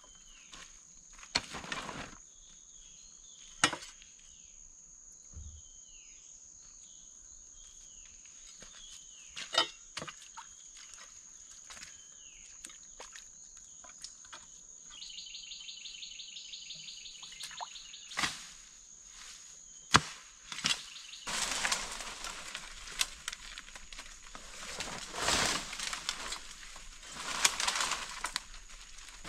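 Forest ambience: a steady high insect drone with birds chirping and a rapid trill partway through, a few sharp wooden knocks, and louder rustling in the undergrowth over the last several seconds.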